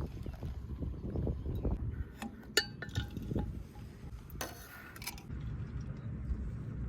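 A few light clinks of camp tableware or cooking gear, one ringing clearly about two and a half seconds in, followed by a short hiss, over a low steady wind rumble on the microphone.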